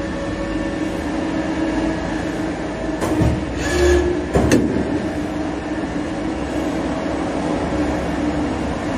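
SYIL L3 CNC lathe running: a steady mechanical hum with a faint steady whine, broken by two short knocks about three and four and a half seconds in.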